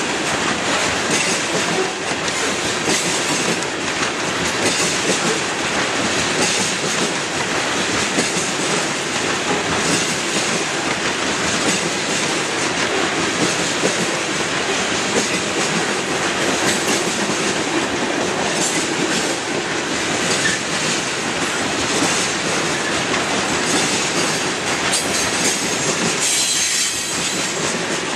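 Loaded covered hopper cars of a freight train rolling past at close range: a steady, continuous rumble and clatter of steel wheels on the rails.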